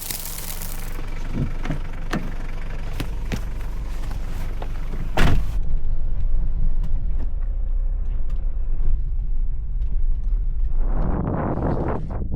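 A vehicle engine idling with a steady low hum. A few knocks come in the first half, then a loud door-like knock about five seconds in, after which a high hiss stops. Irregular rough crunching noises come near the end.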